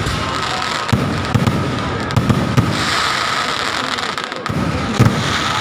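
Aerial firework shells bursting: low booms and a dense crackle of sparks, with several sharp reports. The loudest comes about five seconds in.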